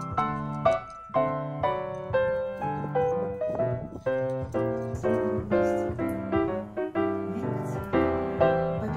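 Background piano music: evenly paced notes, about two a second, each struck and then fading.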